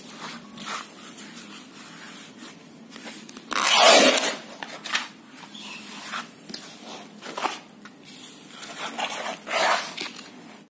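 Old painted canvas being handled and torn by hand: scraping and rustling, with a loud ripping tear about three and a half seconds in lasting under a second, and a second, shorter rip near the end.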